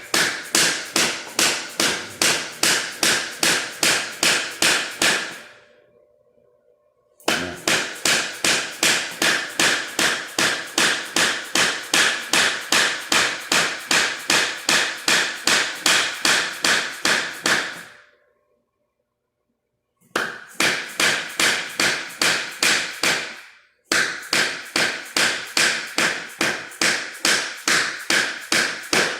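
A hammer tapping flooring planks to seat them together, with rapid, even blows at about three a second. The runs stop briefly twice, about six and nineteen seconds in.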